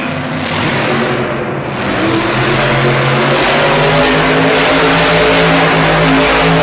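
Grave Digger monster truck's supercharged V8 engine revving hard under throttle, getting louder about two seconds in.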